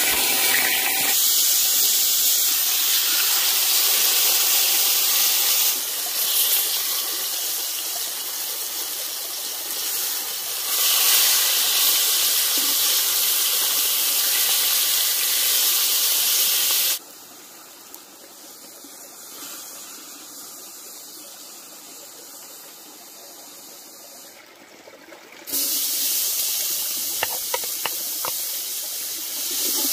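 Seasoned chicken breasts sizzling hard in hot oil in a cast-iron Dutch oven. The sizzle drops much quieter for several seconds past the middle, then comes back loud as chopped onions go into the oil, with a few light clicks.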